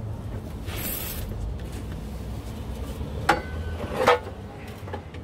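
Two sharp metallic clinks, about three seconds in and again a second later, as the sheet-steel stock muffler of a VW Type 3 is shifted into place and knocks against the engine's exhaust parts. The first clink rings on briefly. There is a short hiss about a second in.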